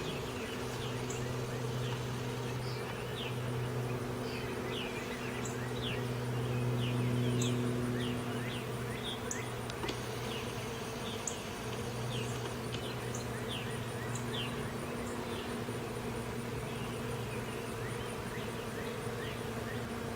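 Bees buzzing in a steady low hum that swells for a couple of seconds about a third of the way in, as one comes close. Behind it, small birds chirp with short, high, falling notes.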